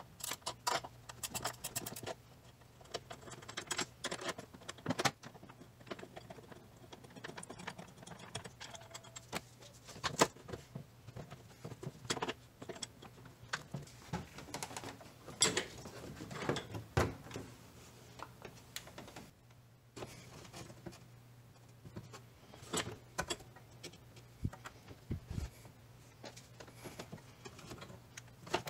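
Hand-tool work under a 4Runner's hood: quick metallic clicking of a wrench turning the battery hold-down nut, rapid at first, then scattered clinks and knocks as the nut and hold-down are handled and the headlight's rear cover is reached for.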